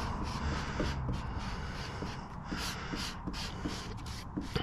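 Squeegee rubbed in short quick strokes over a wet vinyl decal on a car hood, about three strokes a second, pushing soapy water out from under the letters.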